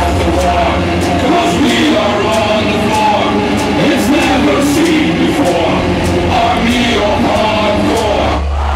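Loud hardcore dance music over a festival sound system, heard from within the crowd: a heavy steady bass with a wavering vocal or melodic line over it. Near the end the music briefly thins, then the bass comes back in harder.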